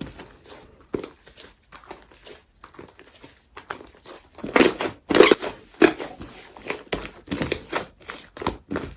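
Slime being squished and pressed by hand, making irregular crackly, crinkly pops and squelches, with a run of louder pops about halfway through.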